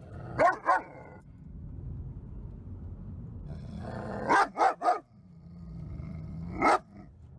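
A one-year-old German Shepherd barking from inside a kennel crate: two quick barks, then three in a row a few seconds later and one more near the end. It is the defensive barking of a fear-aggressive dog at a stranger.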